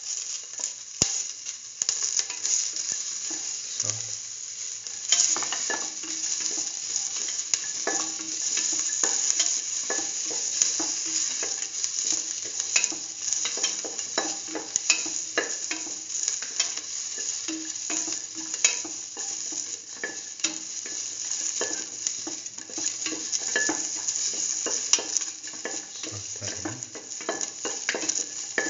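Green bell pepper pieces, shallots and garlic sizzling in oil in a stainless steel pan while being stirred, with frequent clicks and scrapes of the stirring utensil against the pan.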